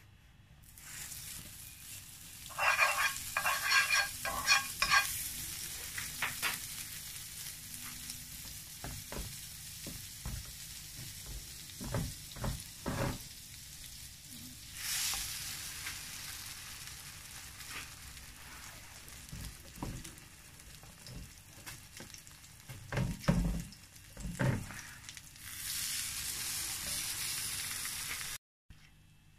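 Butter melting and sizzling in a hot nonstick frying pan, with a run of ringing clinks from a metal spoon against the pan a few seconds in and a few dull knocks later. Near the end the sizzle grows louder as slices of egg-soaked bread go into the butter, then cuts off suddenly.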